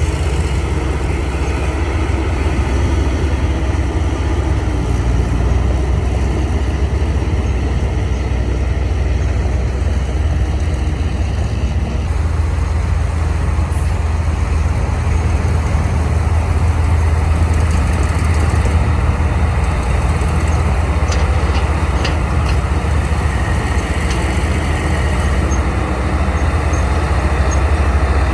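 Heavy diesel earthmoving machinery running steadily with a deep, even engine drone, with a few light clanks about three quarters of the way through.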